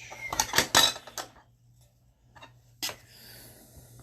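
Magnetic one-touch card holder of hard plastic being handled: a quick run of clicks and clatter in the first second and a half, then a single sharp click a little before three seconds in as the holder is snapped shut on the card.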